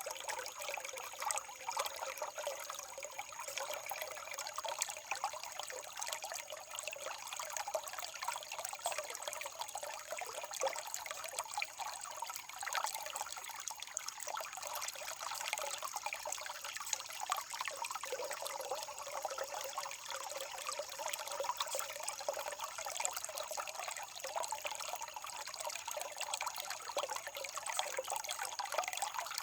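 Running water trickling steadily, with small splashes flickering through it.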